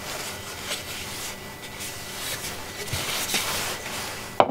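Soft, irregular rubbing and handling on a wooden bowl, with a short sharp click near the end.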